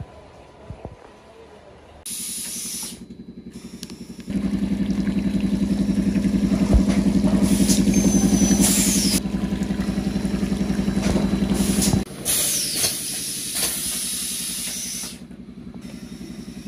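Water jetting hard from a hose valve into a clear plastic bottle: a loud hiss of spray over a steady low hum with a fast flutter. It starts suddenly about two seconds in, grows louder a couple of seconds later, and eases off near the end.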